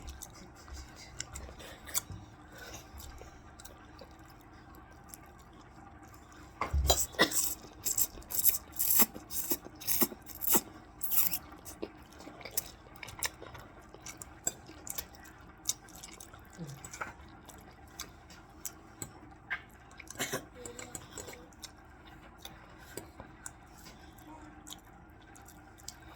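Cutlery clicking and clinking against a plate while eating, with a dense run of clicks from about seven to twelve seconds in and scattered clicks otherwise.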